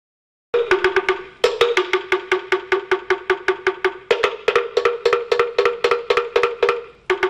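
A two-tone metal bell, cowbell-like, struck fast in a rhythmic pattern at about six strokes a second, alternating between a lower and a higher ringing pitch. It starts about half a second in, with short breaks in the pattern.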